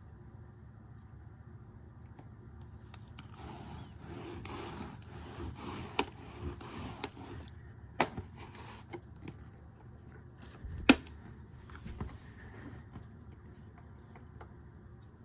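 Handling noises: rubbing and scraping with several sharp clicks, the loudest about eleven seconds in.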